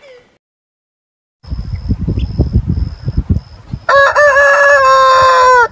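A rooster crows once, about four seconds in: a loud, long, level call lasting nearly two seconds that drops slightly in pitch at the end. Before it, low irregular rumbling noise on the microphone.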